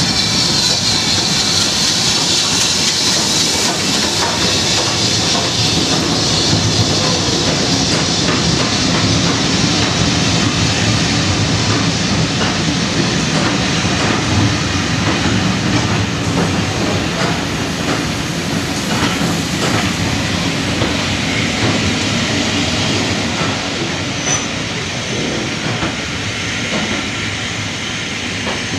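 Steam train running into a station: the BR Standard tank locomotive and then its carriages roll past, wheels clicking over the rail joints, with steam hissing in the first few seconds. The noise eases slowly as the train slows, with a few short wheel or brake squeals near the end.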